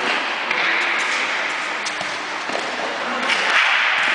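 Echoing din of an indoor futsal game in a large hall, with a few sharp knocks of the ball being kicked.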